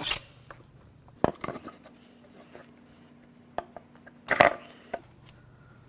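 Clunks and scrapes of an aluminium intake manifold being worked loose and lifted off a Honda J35 V6: a handful of separate knocks, the loudest scrape near the end.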